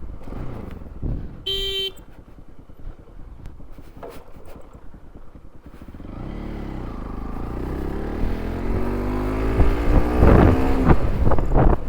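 Bajaj Pulsar NS200 single-cylinder motorcycle engine pulling away. It runs low at first, then rises steadily in pitch and loudness as the bike accelerates. A short horn beep sounds about a second and a half in.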